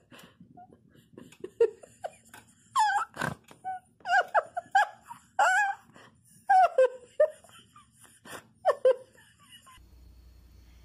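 Kitten mewing: about eight short, high calls with bending pitch, spread over several seconds.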